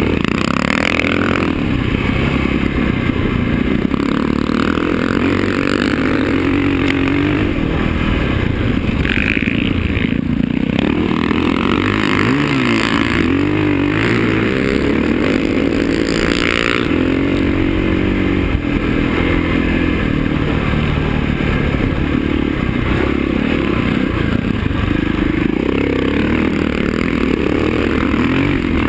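KTM enduro motorcycle engine under way off-road, revving up and down repeatedly as the rider works the throttle, heard close from the bike itself with wind rushing over the microphone.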